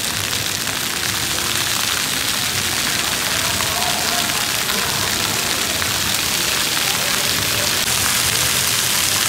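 Floor fountain jets spraying up from a tiled floor and splashing back down onto the wet tiles: a steady, hissing patter of falling water.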